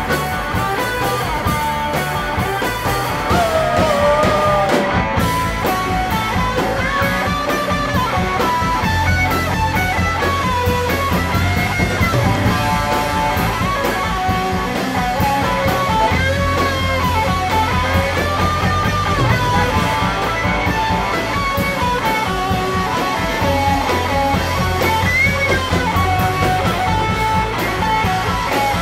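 Rock band playing live on electric guitars, a melodic guitar line winding over a low bass part that drops in and out in sections.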